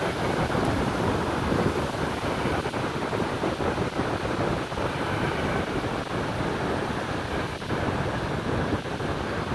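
Wind rumbling and buffeting on a phone's microphone as it is carried along on a moving bicycle, a steady rushing noise that flutters in level.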